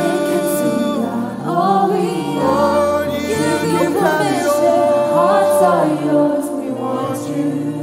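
Live worship music: a man sings a slow, held melody into a handheld microphone, joined by group voices, over a sustained accompaniment.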